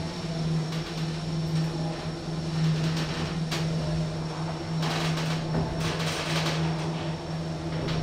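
KONE EcoDisc gearless traction lift travelling down a floor, heard from inside the car: a steady low motor hum with ride noise.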